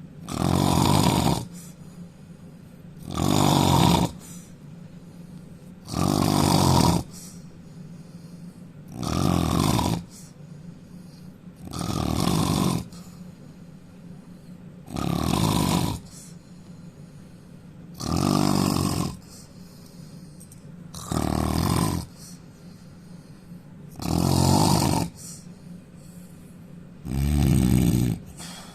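A man snoring loudly in his sleep: one snore about every three seconds, each about a second long, ten in a row, with quiet between them.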